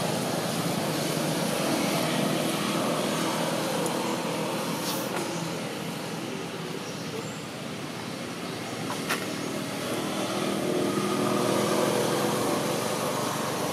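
Steady motor-vehicle traffic noise with a low engine hum, swelling a little near the end, and two faint clicks.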